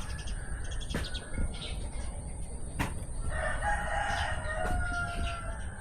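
A rooster crowing once: a drawn-out call of about two seconds starting a little past halfway, over a low steady rumble, with two sharp clicks earlier on.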